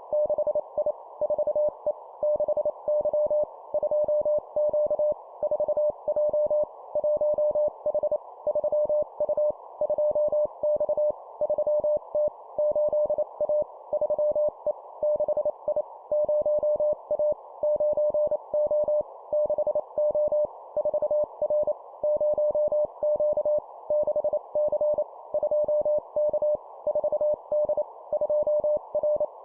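Morse code (CW) sent at 25 words per minute: a single steady mid-pitched tone keyed on and off in rapid dots and dashes, forming two-character groups of numbers and letters, over a steady narrow-band hiss.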